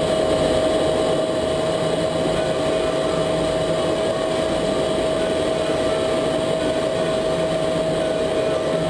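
Jet engine running at a steady setting, a constant whine over a dense rush of noise, with no rise or fall in pitch.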